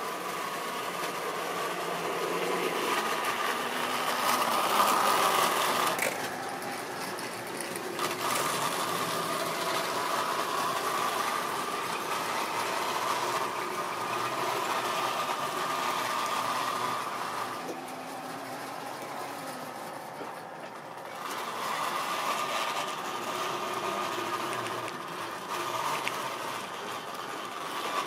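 A Tri-ang model train running past: a small electric locomotive motor whines steadily along with the rattle of wagon wheels on the track. The sound eases for a moment about six seconds in and again for a few seconds past the middle, and there is a single click about eight seconds in.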